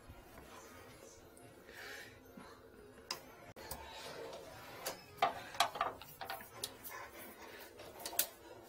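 Scattered sharp clicks and light knocks from handling a sewer inspection camera kit and feeding its push cable into a floor drain. The clicks come irregularly and are thickest in the second half.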